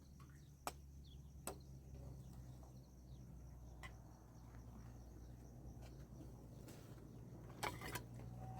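Quiet background: a steady low hum and a faint high hiss, broken by a few sharp clicks or knocks, with a quick run of them near the end.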